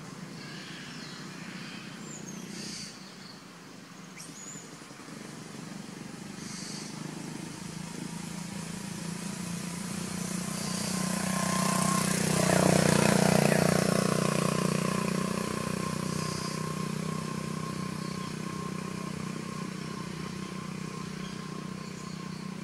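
A motor vehicle passing by: its engine hum grows louder, is loudest about halfway through, then fades slowly away.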